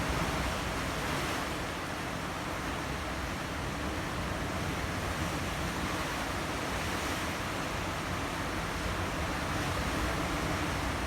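Sea waves washing continuously against a rocky coast: a steady rushing surf with gentle swells in loudness.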